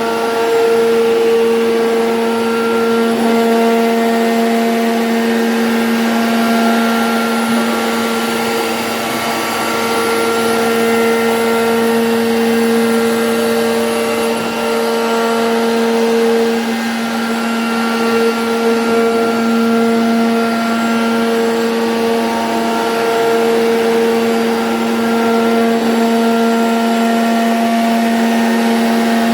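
CNC router spindle running steadily as it cuts a jali lattice pattern in MDF, a constant motor whine at one pitch with a rushing cutting noise underneath.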